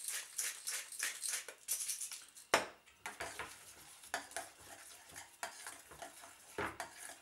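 A salt mill grinding over the bowl with quick rasping clicks, then set down with a sharp knock about two and a half seconds in. After that a spoon stirs and scrapes against a stainless steel mixing bowl, with a louder clink near the end.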